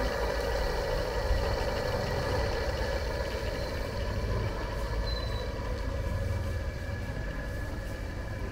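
A steady low rumble with a constant mechanical hum, from a motor running without change.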